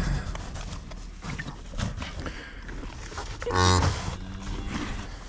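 A newly calved cow gives one short, loud, low moo about three and a half seconds in while licking her newborn calf.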